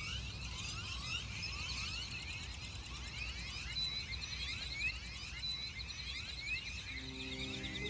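Many birds chirping at once, a dense chorus of short, quick, overlapping notes over a low, steady rumble.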